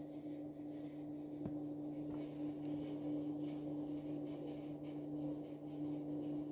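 Steady electrical hum, one unchanging tone with a lower drone beneath it, over faint room noise, with a faint click about a second and a half in.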